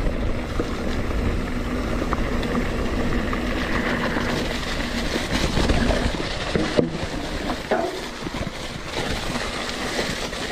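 Wind rushing over an action camera's microphone and mountain bike tyres rolling over a leaf-strewn dirt trail at speed. A steady hum runs through the first half, and there is a single sharp knock from the bike about seven seconds in.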